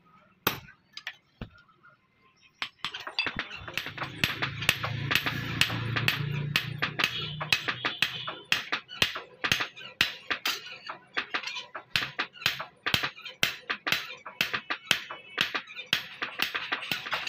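Hand hammer striking a forged steel billhook blade on an anvil: two single blows near the start, then a steady run of sharp metallic strikes about three a second.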